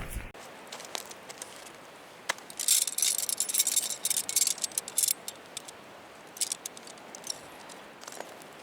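Small hard objects rattling and clinking, in a dense burst from about two and a half to five seconds in, then a few scattered clicks.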